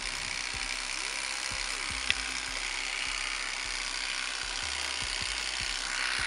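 Electric fillet knife running steadily as its serrated blades saw through a fish fillet, with one sharp click about two seconds in.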